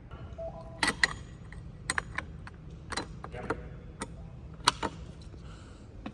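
Sharp metallic clicks and knocks, about seven in a few seconds, from a fire alarm manual pull station and its lift-up cover being handled.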